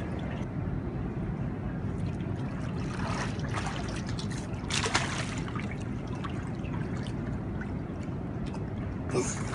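Hot tub water churning steadily from the jets, with a few splashes from a child moving in the water, the strongest about five seconds in and again near the end.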